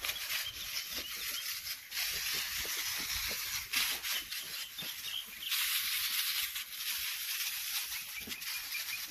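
Backpack sprayer's nozzle hissing steadily as it sprays, louder for about a second past the middle, with light rustling and scuffing of steps through the plants.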